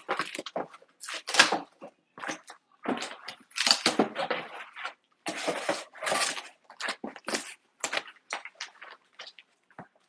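A cardboard moving box being handled and unpacked: a run of irregular rustling, scraping and crinkling noises.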